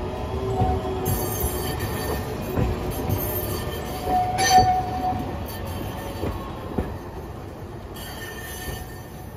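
Hiroden 3800-series 'Green Liner' articulated tram's wheels squealing as it takes a sharp curve, with shifting high squeal tones, the loudest about four and a half seconds in, over the rumble of the cars and a few knocks. The sound fades near the end as the tram moves off.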